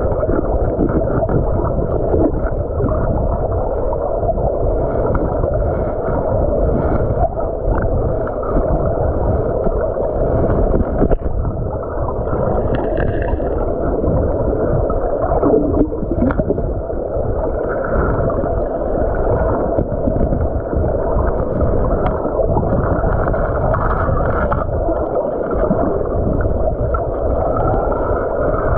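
Stream water moving past an underwater camera: a steady, dull churning with little high end. A few sharp knocks rise above it as a metal digging tool strikes the stones of the riverbed.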